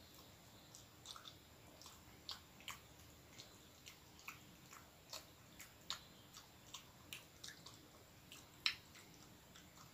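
A person chewing soft bread with the mouth close to the microphone: faint, irregular wet mouth clicks and smacks, a few a second, with one louder smack near the end.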